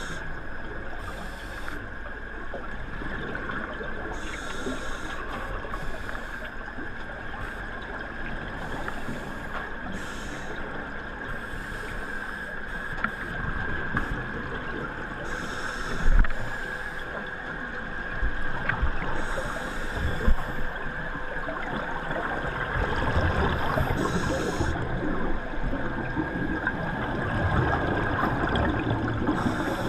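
Underwater sound of scuba divers breathing through regulators, heard through a camera's waterproof housing: bursts of exhaled bubbles every few seconds over a steady background hiss. Two sharp knocks come near the middle.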